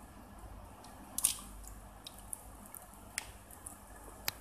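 Hands handling and posing a large ThreeA Bumblebee action figure: a handful of sharp, light clicks and taps from the figure's parts. The loudest comes about a second in.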